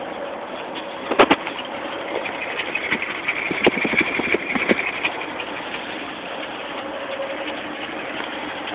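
1970 Chevrolet C10's inline-six engine idling steadily, heard at the exhaust, with the sound growing louder and rougher for a few seconds at the tailpipe. Two sharp knocks come about a second in.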